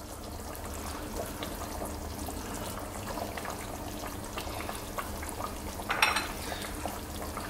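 Potato and egg curry simmering in an open pot: a steady, fine bubbling crackle. A short clatter comes about six seconds in.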